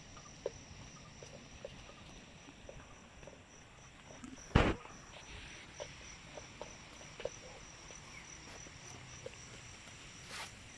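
Outdoor field ambience: a steady, high-pitched insect chirr with scattered small ticks. One sharp knock, the loudest sound, comes a little over four seconds in, and a fainter rustle comes near the end.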